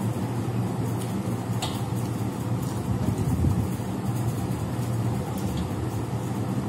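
A steady low background hum, with a few faint ticks and scrapes of fingers mixing rice on metal plates.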